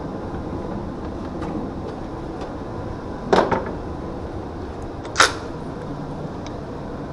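Two sharp knocks, like a door or latch shutting, about three and five seconds in, over a steady background rumble, with a few faint clicks between.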